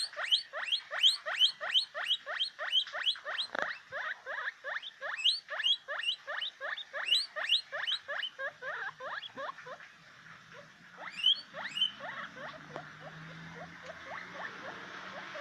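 Guinea pig wheeking: a fast run of short, rising squeals, about three a second. The squeals stop around ten seconds in, and a few more follow a second or so later.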